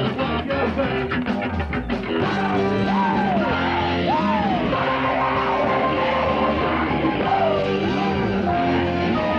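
Rock band playing a song, an instrumental stretch between sung lines. It opens with quick drum hits over the first two seconds, then sliding notes swoop up and down in pitch a few times.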